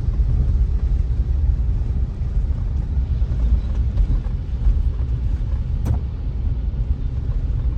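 Car driving along, heard from inside the cabin: a steady low rumble of engine and road noise, with a single short click about six seconds in.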